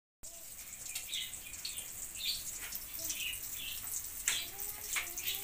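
Sausages frying in a little oil in a steel wok, a steady light sizzle with small crackles. Metal tongs click against the wok a couple of times near the end.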